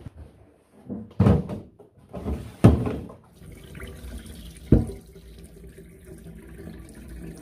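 A few loud knocks and thumps as plastic and appliance parts are handled, then water poured steadily from a plastic container into a stainless steel sink.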